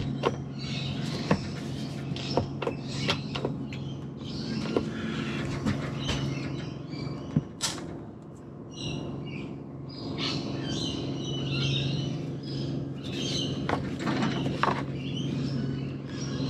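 Birds chirping and calling over a steady low hum, with scattered sharp clicks and knocks from plastic epoxy dispenser pumps being pressed and jugs being handled.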